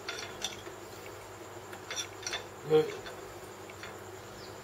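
Light metallic clicks and scrapes of a thin steel feeler gauge blade being slid into the gap under the edge of a metal plate held in a vice, over a steady faint hum. A brief soft knock a little past halfway.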